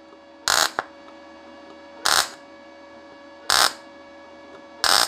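MAG tack welds on 0.7 mm steel sheet with a Parkside PMSG200A1 inverter welder set to about 115 A and 20.2 V, under 82% argon / 18% CO2 shielding gas: four short bursts of the welding arc, about a second and a half apart. Each tack strikes cleanly without stuttering, a sign that the gas is now flowing properly.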